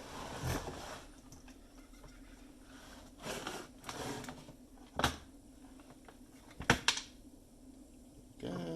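Sharp clicks and knocks of plastic and metal parts and tools being handled while an espresso machine is taken apart, about six separate knocks with the loudest pair about two-thirds of the way in, over a steady low hum.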